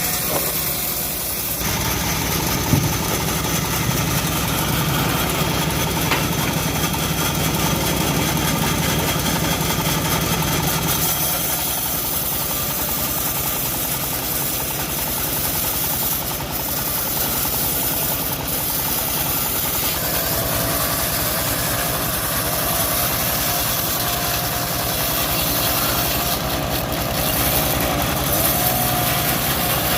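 Engine of a homemade bandsaw mill running steadily, its note changing a few times along the way.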